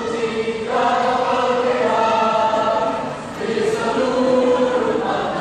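A mixed school choir of boys and girls singing together in long held notes, with a short break between phrases a little past three seconds in.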